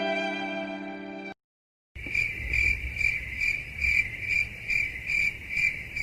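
A violin music clip ends a little over a second in, then after a short silent gap comes a cricket chirping sound effect: a high, steady chirp pulsing a little over twice a second.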